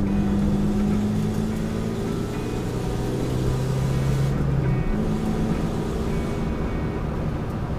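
Car engine running steadily with tyre and road noise, heard inside the cabin while driving. The engine note shifts about five seconds in.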